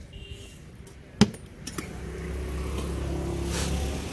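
A single sharp click about a second in, then a motor vehicle's engine running with street noise, growing louder.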